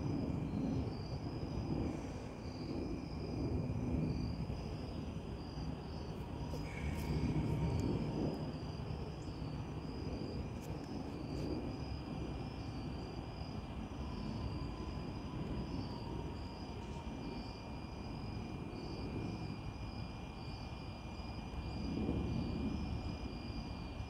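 Outdoor ambience: a steady, high-pitched insect chorus trilling without a break, over a low rumble that swells and fades every few seconds.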